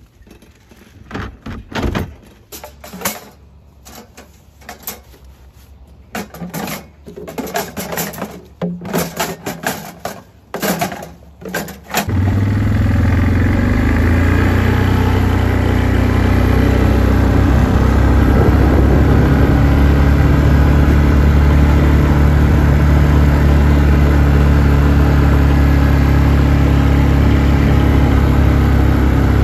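Hard plastic bottles knocking and clattering against the calf hutches' metal gates and holders as they are pulled off. About twelve seconds in, a four-wheeler (ATV) engine starts abruptly and then runs steadily.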